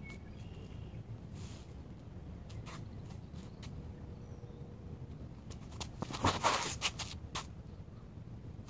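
Footsteps scuffing on the ground right beside the microphone, a quick cluster of them about six to seven seconds in, as a disc golfer steps into his throw; a few light clicks before it.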